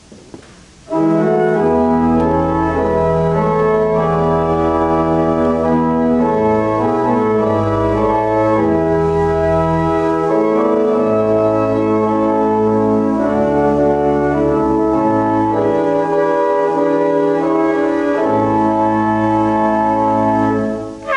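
Church pipe organ playing a sustained chordal prelude with slowly changing bass pedal notes, coming in about a second in and easing off briefly near the end.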